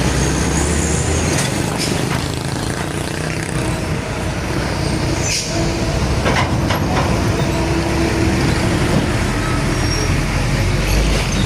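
Heavy road traffic with large diesel trucks passing close by: engines running and tyre noise, steady throughout, with a few brief high squeaks and clicks.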